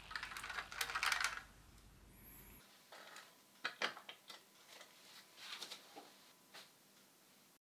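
Soft rustling as a toy DeLorean model car is handled, then scattered small sharp clicks and taps as it is set down and nudged on a smooth surface. The loudest clicks come in a quick cluster a little under four seconds in.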